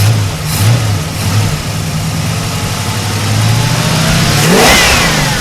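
An engine idling with a pulsing low beat, then revved up about four and a half seconds in, its pitch climbing quickly.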